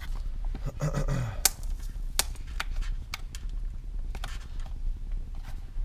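Cardboard packaging crackling and clicking as the pull tab on a small retail box is pulled open: a string of sharp, irregular clicks and snaps.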